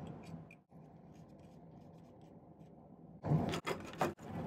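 Faint scratching and rubbing of hands handling pliers and bezel wire on a bench, with a louder rustle of about a second near the end.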